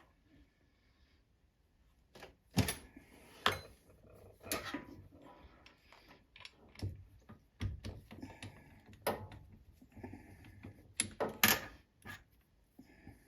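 Hard objects being handled: irregular clicks, knocks and light clatter of small parts and tools set down and picked up. They start a couple of seconds in, and the loudest come near the end.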